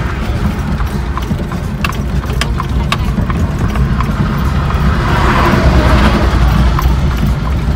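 Horse-drawn buggy on a paved road: the horse's hooves clip-clop on the asphalt over a steady low rumble of the buggy's wheels. A louder rushing swell comes about five seconds in.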